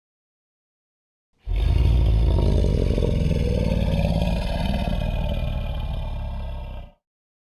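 Zilla creature sound effect: a deep rumbling roar with a wavering mid-pitched growl over it. It starts suddenly about a second and a half in, lasts about five seconds and cuts off abruptly.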